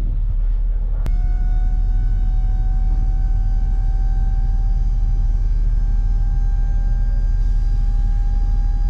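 Work truck's engine and drive heard from inside the cab while driving: a steady low rumble, with a click about a second in, after which a faint whine slowly rises in pitch as the vehicle gathers speed.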